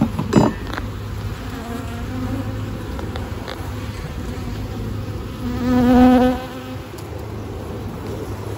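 Honeybees buzzing steadily around an open box of frames as a frame is worked loose, with a couple of short wooden knocks just after the start. About midway one bee buzzes louder and closer for about a second.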